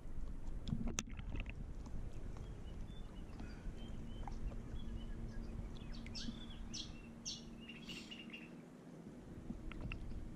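Shallow water sloshing and splashing around a wading dog close to the microphone, with a few sharper splashes about six to eight seconds in. A faint steady hum sits underneath from about a third of the way in.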